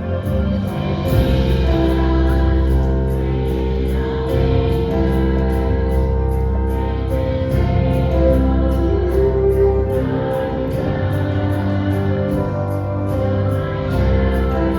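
Choral music: a choir singing sustained chords over an instrumental accompaniment with a steady bass.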